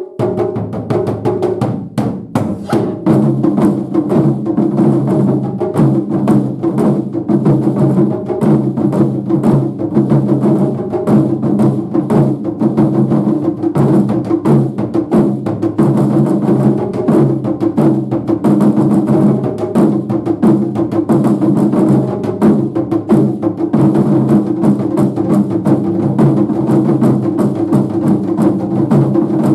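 Japanese taiko drum ensemble playing a fast, continuous stream of drum strikes, growing fuller about two seconds in.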